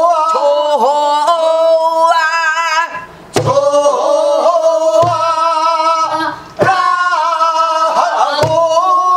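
A woman singing pansori in the slow jinyang rhythm: long held notes with wide vibrato in three phrases broken by breaths. A few low strokes on a buk barrel drum come under the voice.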